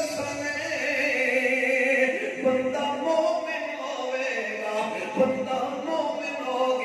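A man's voice chanting a devotional verse into a microphone, singing long, drawn-out melodic lines with held notes.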